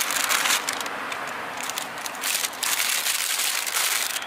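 Plastic bread packaging crinkling and rustling as it is handled, in irregular bursts over a steady hiss.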